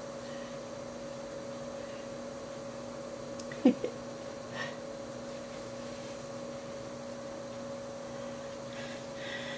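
Steady electrical hum with two constant tones. A brief falling vocal sound comes a little over a third of the way in.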